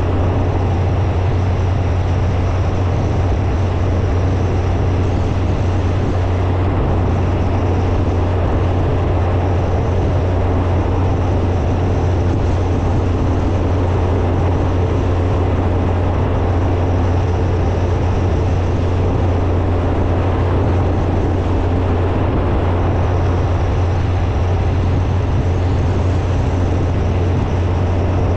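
Motorcycle under way at a steady speed: a constant low engine drone under an even rushing noise, with no change in pace.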